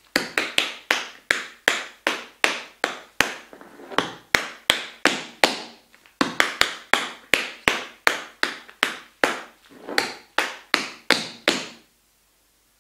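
Tap shoes striking a wooden floor in a repeated tap-dance step sequence: sharp taps about four a second, in two phrases with a brief pause about six seconds in. The taps stop about a second before the end.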